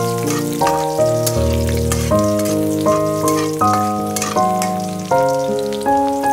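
Instrumental background music, with notes struck about every three-quarters of a second and each fading, over the crackling sizzle of sliced garlic and dried red chillies frying in oil in a wok.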